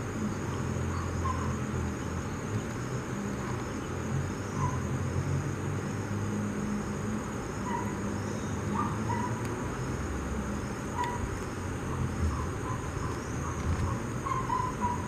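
River water rushing over rapids, with a continuous high insect buzz and scattered short chirps over it.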